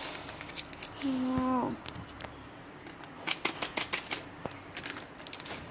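Foil seasoning sachet crinkling and being tapped as powder is shaken out of it onto noodles, with a quick run of sharp little clicks in the second half.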